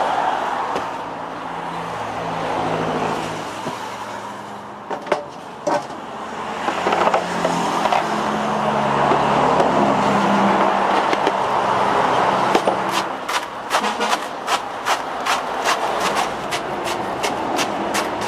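Road traffic passing, swelling and fading, with a low engine hum. Over the last six seconds or so come quick sharp knocks, about three a second.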